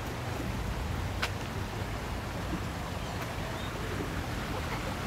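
Steady outdoor background noise: a low rumble under an even hiss, with one sharp click about a second in.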